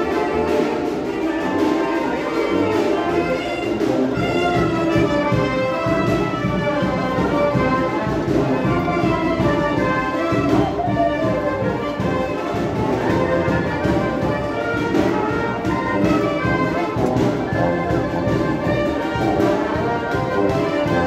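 Brass band music playing, with trumpets and trombones.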